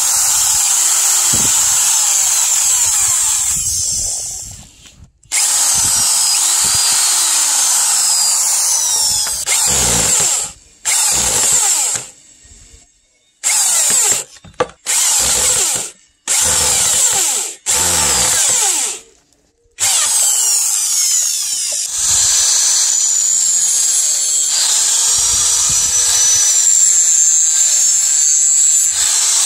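Electric hand drill boring pin holes through wooden knife-handle scales and the steel tang. It runs steadily at first, then in a series of short bursts with pauses between them. Near the end an angle grinder with a sanding disc runs steadily, grinding the wooden handle.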